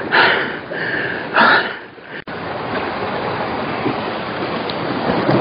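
Sea waves washing against shore rocks, with two short surges in the first two seconds. After a sudden cut about two seconds in, a steady, even wash of sea noise.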